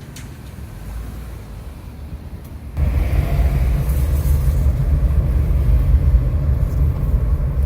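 Car driving: a steady low road-and-engine rumble that suddenly gets much louder about three seconds in and stays loud.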